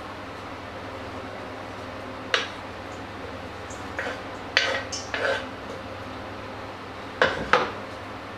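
A board and knife knocking and scraping against a stainless steel mixing bowl as chopped onion is tipped into it: a few short sharp clinks, bunched in the middle and a pair near the end, over a steady low hum.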